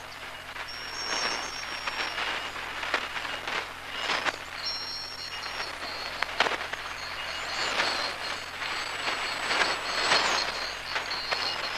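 Shortwave radio reception noise on the 41-metre band: steady hiss broken by frequent sharp static crashes, with thin high whistling tones that come and go. No programme audio comes through.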